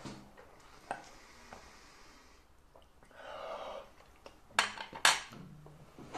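People breathing hard against the burn of extremely hot chili nuts: a long breath out, then two sharp gasping breaths about half a second apart.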